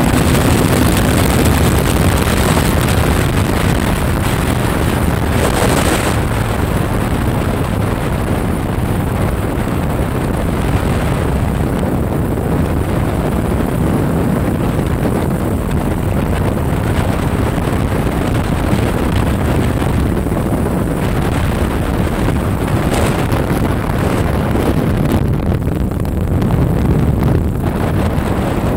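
Honda XR650L single-cylinder four-stroke engine running at steady road speed, mixed with heavy wind rush on the handlebar-mounted microphone.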